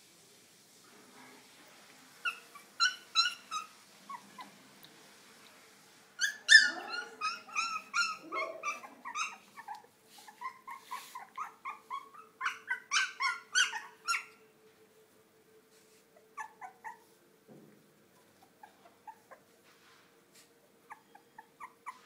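Very young puppies whimpering in runs of short, high-pitched squeaky cries, several a second, loudest about a third of the way in. The cries die down to a few faint squeaks near the end.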